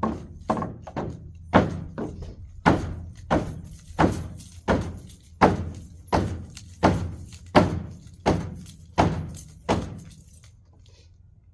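A steady series of heavy thuds, about one every three-quarters of a second, each dying away quickly; they stop about a second before the end.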